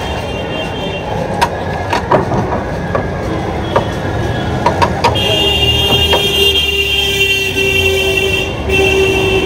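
Road traffic: a steady engine and road rumble with a few sharp clicks. About five seconds in, a long held vehicle horn starts and sounds with only a brief break.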